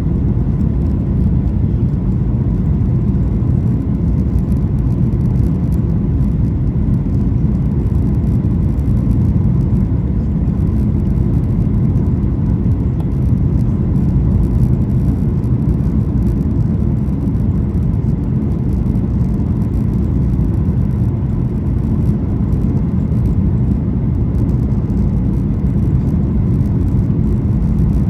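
Steady rumble of a Boeing 737-800 heard from inside the economy cabin in flight: the CFM56-7B engines and the rush of air over the fuselage, with a faint steady whine above it.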